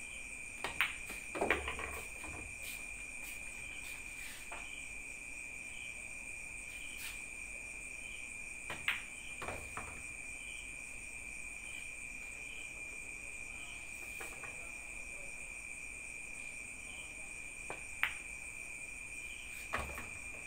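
Pool balls clicking: the cue tip striking the cue ball and balls knocking together in short clusters of sharp clicks, about a second in, again about nine seconds in, and twice near the end. Under them runs a steady high insect trill.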